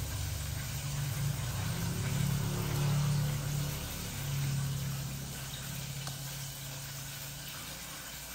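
Food sizzling in a frying pan, a steady hiss, with a low hum that swells from about two to five seconds in and then fades.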